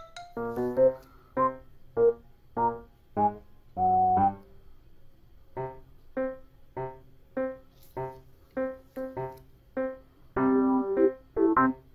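Background music: a light keyboard tune of short notes about every half second, getting busier near the end.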